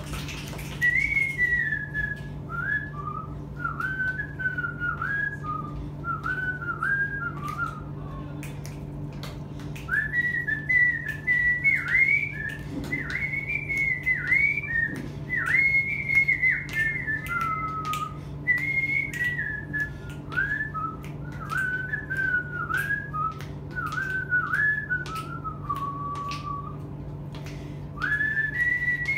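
A woman whistling a melody through pursed lips: phrases of swooping, gliding notes, with a short break about a third of the way in and another near the end before a new phrase starts.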